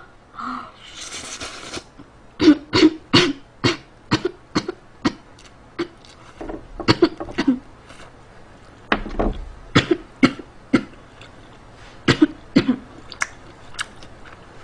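A woman coughing hard in repeated fits of short, harsh coughs, from food caught in her throat while eating stir-fried sundae, which she blames on too much pepper in it. A sharp breath in comes first.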